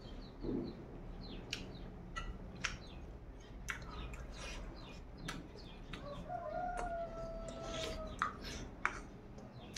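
A rooster crows once, a single held call of about two seconds starting some six seconds in. Scattered faint clicks of a man eating from a bowl with his fingers run throughout.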